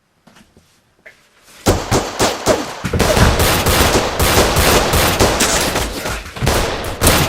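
A few faint clicks, then from about a second and a half in, rapid, continuous gunfire: many loud shots overlapping in a barrage.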